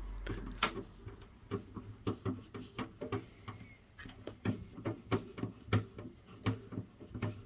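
Irregular light clicks and taps, a few a second, from driving screws by hand and handling the heater's parts during reassembly.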